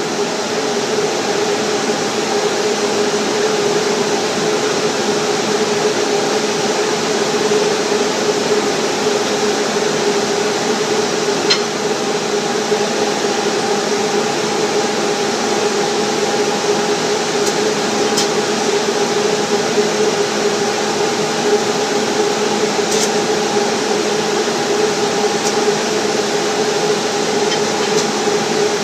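Stick welding with a 6010 mild steel rod: a steady arc noise with a hum under it and a few sharp pops along the way.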